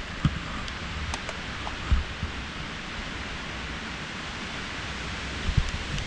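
Sustained storm wind blowing through trees: a steady rushing hiss, with three short low thumps, about a quarter second in, near two seconds and near the end.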